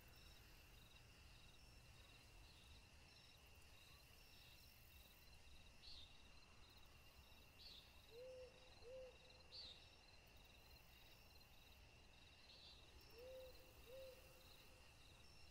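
Faint night ambience of insects: a steady high-pitched drone with rows of rhythmic chirping. A low two-note call sounds twice, about eight seconds in and again near the end.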